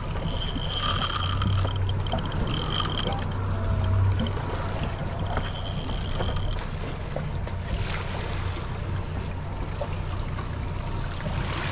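Steady wind and water noise on a small open boat while a spinning reel is cranked against a hooked blackfin tuna. A thin, high, steady whine comes and goes twice.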